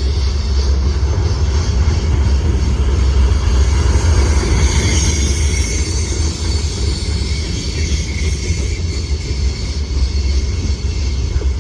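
Freight train rolling past: a steady, loud rumble of wheels on rail, with faint high wheel squeal.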